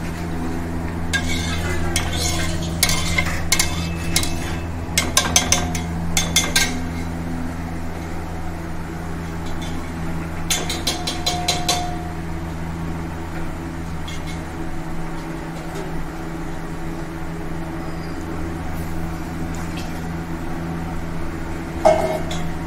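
Metal ladle stirring and scraping inside a steel pressure-cooker pot on a gas stove, with bursts of rapid clinks against the pot's side during the first several seconds and again around the middle, over a steady low hum. One louder clank of steel dishware comes near the end.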